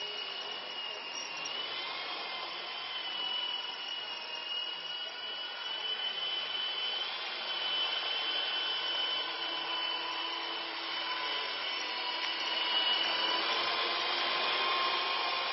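Radio-controlled MD 500 scale model helicopter in flight: a steady whine of its motor and rotor with a thin high tone in it, getting louder near the end as it comes close.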